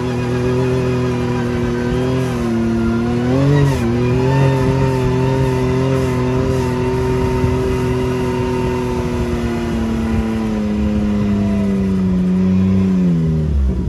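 Engine of a vehicle towing a snowmobile on a rope, running at a steady pitch. The pitch dips briefly about three and a half seconds in, then falls gradually over the last few seconds as the vehicle slows.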